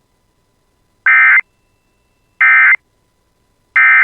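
Emergency Alert System end-of-message (EOM) data bursts: three short, identical, loud bursts of two-tone digital warbling, about a second and a third apart, marking the end of the alert.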